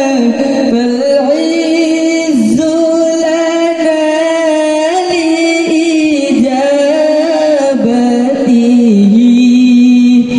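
A young man's solo voice singing an unaccompanied Islamic gojol (Bengali devotional song) into a handheld microphone, with long held notes that bend and ornament up and down in pitch.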